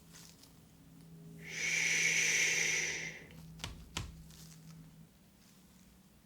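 Cardboard retail packaging being handled: a scraping, hissing slide for about two seconds, then two light clicks close together.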